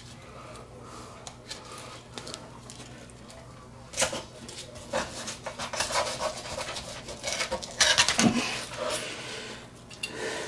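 A dull fillet knife scraping and cutting through a mangrove snapper's rib cage on a plastic cutting board. From about four seconds in come irregular rustling and knocking handling noises as cloth rubs against the camera microphone while the camera is moved.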